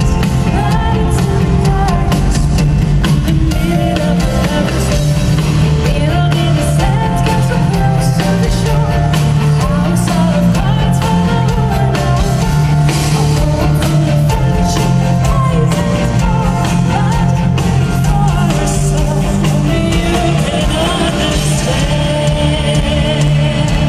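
Symphonic metal band playing live through an arena PA, heard from the audience: a steady drum beat and bass under guitar and keyboard melody lines, with a female lead voice singing.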